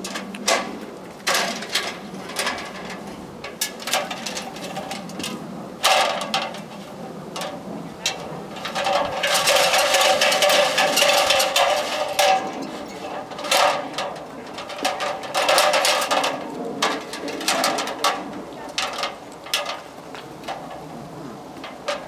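Aluminium extension ladder being handled and raised, its metal rails and rungs clanking and rattling, with irregular sharp knocks and a dense stretch of metallic clatter about halfway through.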